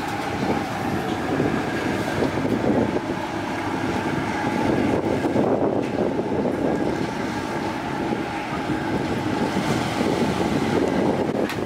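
Fast passenger ferry underway at sea: a steady engine drone under wind buffeting the microphone and rushing water, swelling and easing a little.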